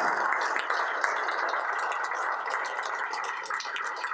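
Audience applause in a meeting room, the clapping slowly dying down.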